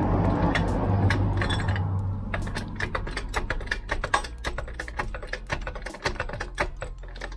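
Hand ratchet wrench clicking in quick, irregular strokes while a bolt is turned on the rear shock absorber mounting. A louder rushing noise with a low hum fills the first couple of seconds.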